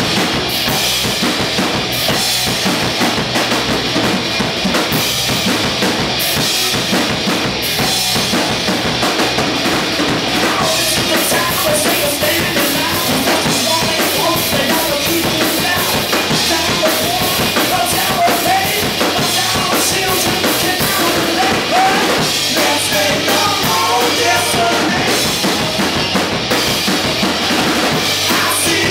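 Rock band playing live: electric guitar, bass guitar and a drum kit with bass drum and snare, loud and steady, with a wavering melodic line in the middle range from about ten seconds in.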